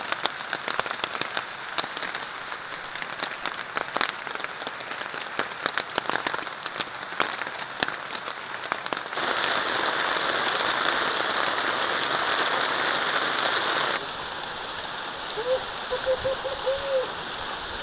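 Rain falling on a hammock tarp overhead: many separate drops ticking on the fabric, then a louder, steadier hiss of rain for several seconds from about 9 s in. About 14 s in it gives way to a quieter steady rush of a small waterfall splashing into a stream.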